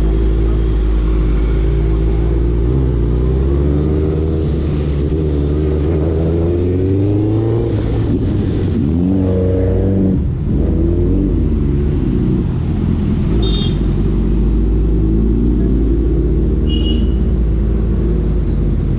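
Suzuki Hayabusa Gen3's inline-four through an Ixil aftermarket exhaust, running on the move with the revs rising and falling. About eight seconds in it revs up sharply, then drops away with a brief dip in level near ten seconds.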